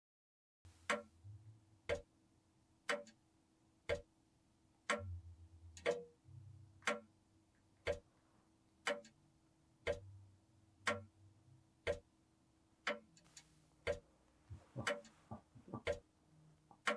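A clock ticking steadily, about one tick a second, starting a little under a second in, over a faint low hum. Near the end a few extra soft clicks and rustles fall between the ticks.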